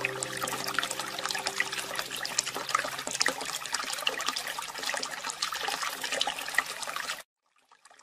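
Trickling water, a dense patter of small drips and splashes, with a soft held music chord fading out over the first few seconds. It cuts off suddenly about seven seconds in.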